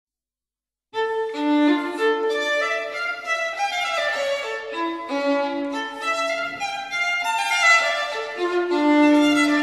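Background music with a violin melody of held notes, starting about a second in after a moment of silence.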